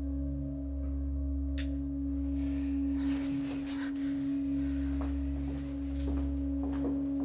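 Suspense film-score drone: one steady held tone over a low bass that swells and dips in slow pulses, with a few faint clicks and rustles in the second half.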